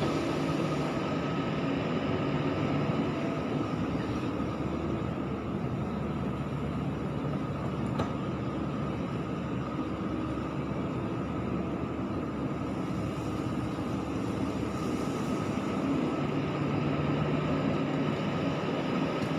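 Hyundai 140W wheeled excavator's diesel engine running steadily under load, getting a little louder near the end, with one sharp click about eight seconds in.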